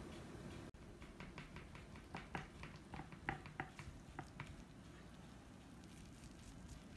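Faint, quick clicks and crackles as a spatula cuts down through the baked cheese crust of a pasta bake and touches the glass baking dish. About a dozen ticks come over three and a half seconds, then stop.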